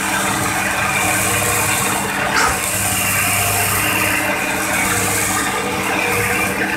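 Hitachi hydraulic excavator's diesel engine running with a steady low hum under a loud hiss from the engine and hydraulics, heard close up from the machine; a short sharp knock about two and a half seconds in.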